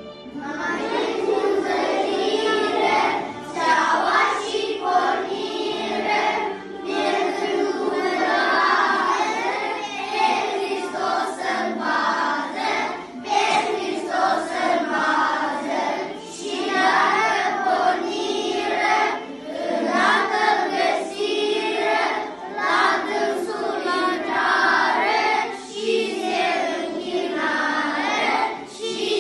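A class of young children singing a Romanian Christmas carol (colindă) together as a group, starting a moment in.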